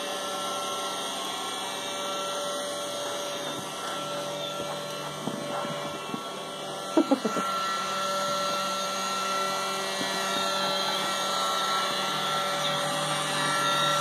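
iRobot Roomba robot vacuum running on carpet, a steady motor and brush hum. About halfway through come a few short, sharp sounds.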